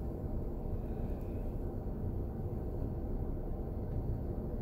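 Steady low rumble and hum inside a car's cabin.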